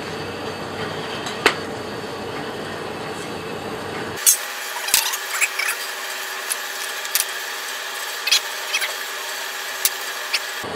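Knocks and clinks of freshly cast aluminium parts and their petrobond sand mould being broken out by hand, over a steady hiss. A single sharp knock comes about a second and a half in, then a run of uneven knocks and clicks starts about four seconds in.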